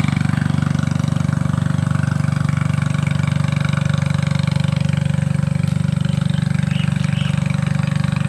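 A small engine running steadily at a constant speed, with an even, rapid pulse and no change in pitch.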